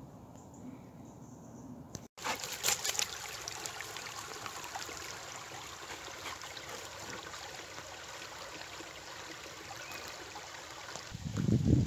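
Water trickling steadily, a busy hiss with many small splashes, starting abruptly about two seconds in. A low rumble swells near the end.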